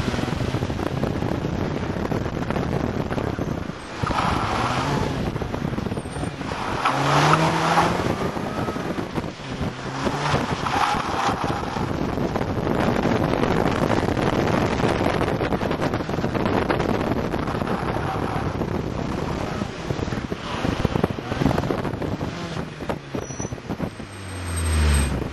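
MINI Cooper S engine revving hard through an autocross run, heard from inside the car, with its tyres squealing several times through the turns.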